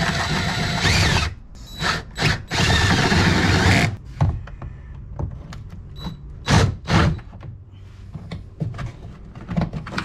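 Cordless drill boring holes through a kayak's plastic hull, running in bursts. A run that stops about a second in is followed by two short blips and another run of about a second and a half. Two short bursts come near the middle, then lighter knocks toward the end.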